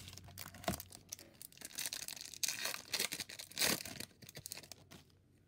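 A baseball card pack's wrapper being torn open and crinkled by hand, a dense rustling and crackling that dies away after about four seconds.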